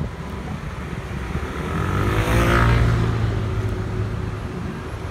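A motor vehicle passes close by: its engine swells to a peak about two and a half seconds in, then drops in pitch and fades as it moves away. A low wind rumble on the microphone from riding runs under it.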